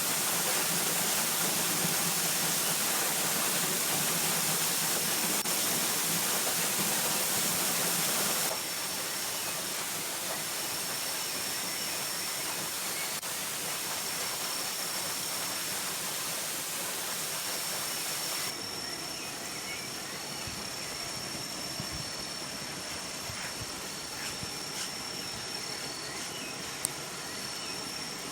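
Waterfall: the steady rushing of falling water. It changes in character and drops in level twice, about a third and about two thirds of the way through.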